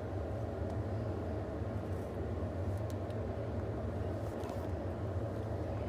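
A steady low rumble at an even level, with a few faint light ticks.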